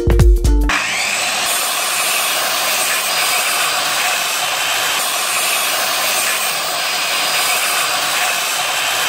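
Makita handheld circular saw running and cutting through a pine pallet board: a steady saw noise that cuts in abruptly just under a second in and holds at an even level throughout.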